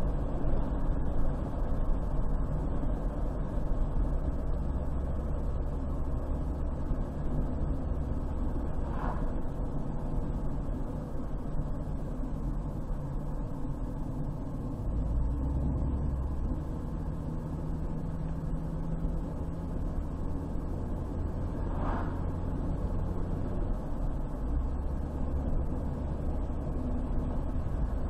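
Car driving along a road: a steady low rumble of engine and tyre noise. Two brief higher-pitched sounds stand out, one about a third of the way in and one about three quarters of the way through.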